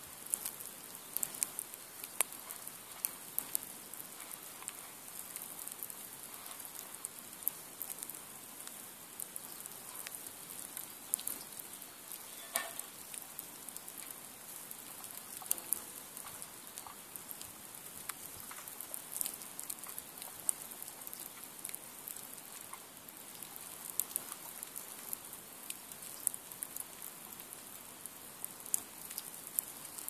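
Nodya log fire, two long logs laid lengthwise one on the other burning along their length, crackling with frequent sharp pops over a steady soft hiss.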